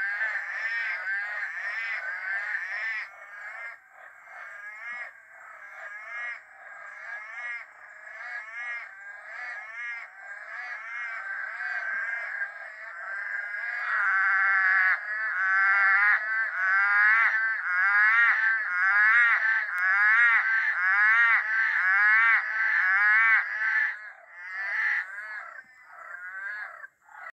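A chorus of many tree frogs calling over one another, in repeated short notes that rise and fall in pitch. It grows louder about halfway through and cuts off suddenly at the end.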